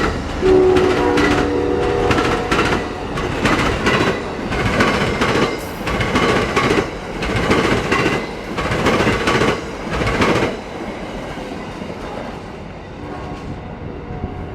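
Train passing close by: a brief multi-note diesel locomotive horn chord about half a second in, then the wheels clacking rhythmically over the track as the cars roll past. The clacking fades out after about ten seconds.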